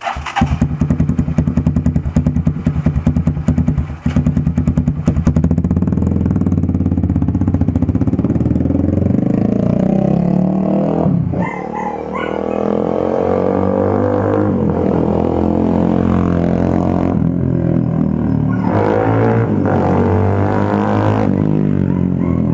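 Z200S motorcycle engine running through an Akrapovic Hexatip muffler with big elbow. It runs with a choppy, pulsing note for about five seconds, then is revved up and down several times.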